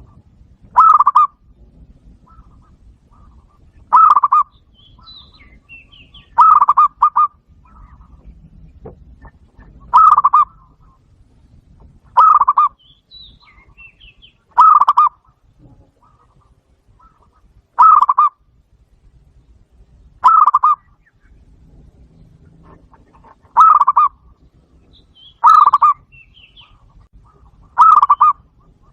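Zebra dove calls: a short, rapid run of cooing notes repeated about a dozen times, every two to three seconds. It is a recorded call of the kind played through a Bluetooth speaker to lure wild zebra doves. Faint chirps from other birds sound between the calls.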